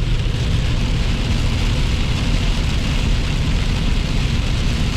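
Steady rain falling, with a constant low rumble under it.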